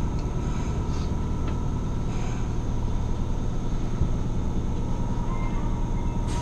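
Subway car interior as the train brakes to a stop in a station: steady low running rumble with a faint steady whine and a few light clicks. A sudden hiss right at the end as the doors open.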